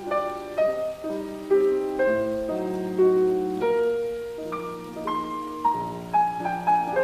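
Solo piano music: a melody of separate notes over soft chords, with a faint rain sound underneath.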